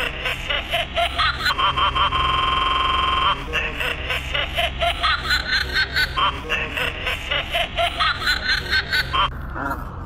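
Creepy possessed-doll giggling: a staccato laugh at about four beats a second that climbs in pitch in repeated runs, over a constant low electrical hum. About two seconds in, a steady buzzing tone holds for just over a second. Near the end the giggle cuts off into a falling glide.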